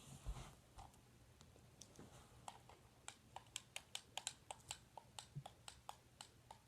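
Faint, quick light clicks, three or four a second, starting about two seconds in and lasting several seconds.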